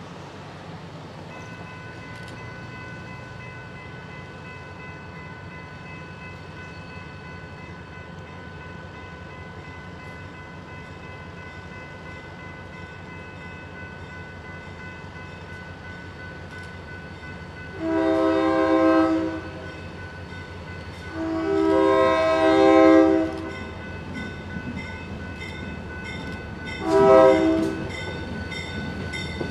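Approaching diesel freight locomotive with its engine running, over which its multi-chime air horn sounds two long blasts and then a short one in the second half. A steady high tone runs underneath from about a second in.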